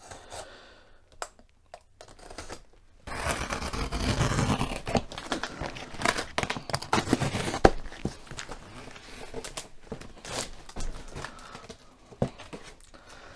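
Packaging being torn and crinkled by hand, densest for about five seconds starting some three seconds in, then thinning to scattered crackles and knocks.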